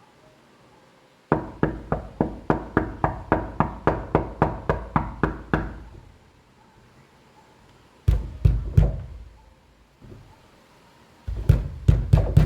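Knocking on a door. First comes a quick run of about eighteen knocks at roughly four a second. After a pause there are three heavier, deeper knocks, and near the end another burst of heavy knocks.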